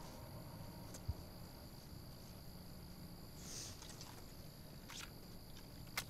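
Faint night ambience of crickets chirping steadily, with a soft thump about a second in and a few small clicks, the sharpest one near the end.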